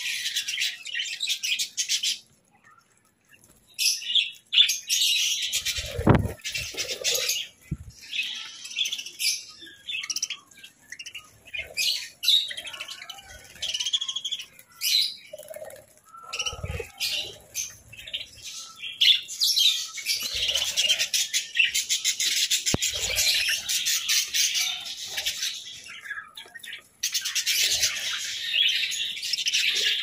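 A flock of budgerigars chattering and chirping in dense, rapid warbling. The chatter breaks off to near silence for about a second and a half just after two seconds in. A few low knocks sound in between.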